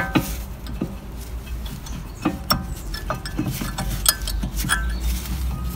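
Light metallic clinks and knocks as a brake caliper is worked down over new brake pads on a VW Polo's front brake, the steel parts tapping against each other about a dozen times, irregularly.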